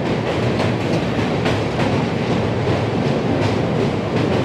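Passenger train's wheels clattering over the rails of a steel truss bridge, a loud steady rumble with a run of regular clicks from the rail joints, heard from an open coach doorway.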